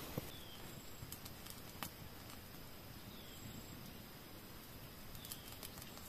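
Faint outdoor ambience: a steady low hiss with a few scattered sharp clicks, and a short, high, slightly falling chirp three times.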